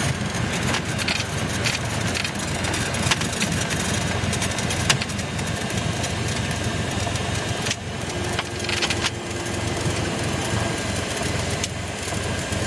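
Cessna 172's piston engine and propeller running steadily at low taxi power, heard from inside the cabin.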